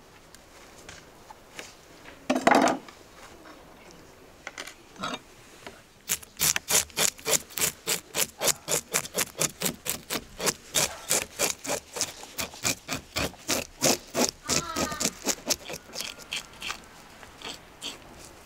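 A handheld fish scaler scraping the scales off a whole fish on a wooden cutting board, in quick, even strokes about three to four a second. A short loud noise comes once, before the scraping begins.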